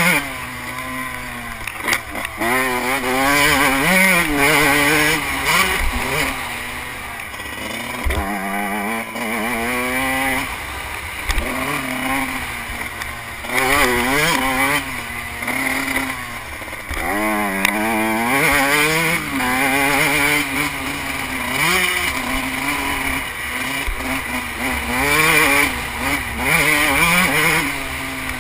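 Suzuki RM125 two-stroke motocross engine, heard from the rider's helmet, revving up and falling back again and again as the bike accelerates, shifts and slows around a dirt track. Wind noise runs under it, with a few short knocks.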